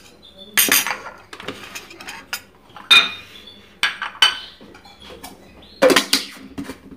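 A teaspoon and small dishes clinking and knocking in a string of irregular sharp clinks while seed ingredients are handled before grinding.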